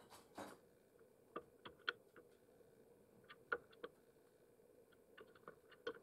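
Faint, sharp taps of a crow's bill pecking at food in a bowl, coming singly and in quick little clusters, with a short rustle just after the start.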